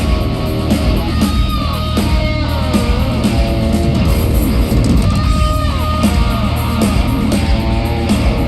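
Live amplified electric guitar playing bent and sliding notes over a steady low bass rumble, with no vocals.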